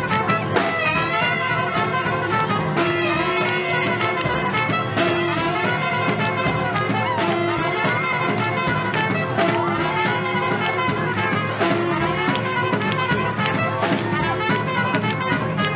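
Brass-led swing-band music with trumpets and trombones, playing steadily.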